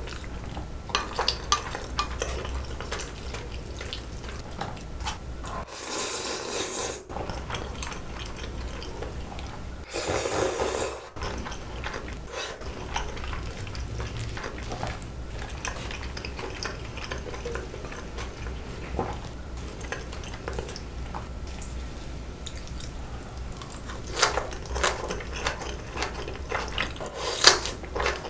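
Close-miked eating sounds: chewing, wet mouth sounds and light clicks of metal chopsticks against dishes. There are two short rushing noises about six and ten seconds in, and a run of sharper clicks near the end.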